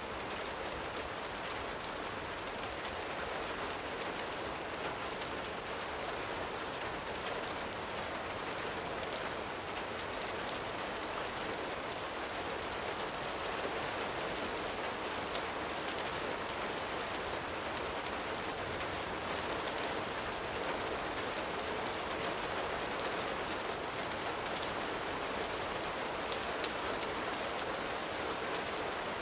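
Steady gentle rain falling, an even hiss peppered with fine scattered drop ticks.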